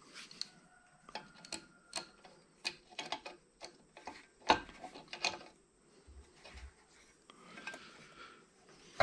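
Irregular clicks and knocks of hand tools working on a cast-iron wood planer/jointer as it is taken apart, the two loudest knocks about halfway through, followed by a couple of dull thuds.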